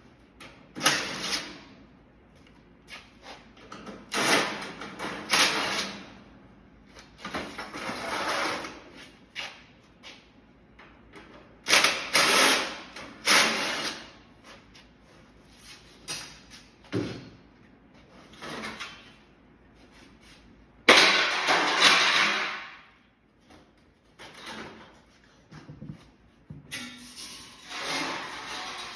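Hand tools working on an air-conditioner unit's sheet-metal casing and parts: irregular bursts of scraping and rattling metal, each lasting a second or two. The loudest come about twelve and twenty-one seconds in.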